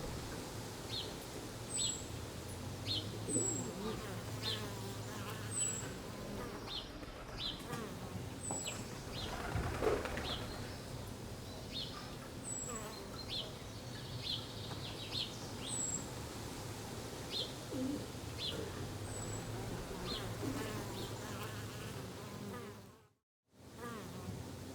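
Garden ambience: a buzzing insect such as a fly or bee drones and wavers, while a small bird chirps over it in short high notes about once a second. The sound cuts out suddenly for about half a second near the end.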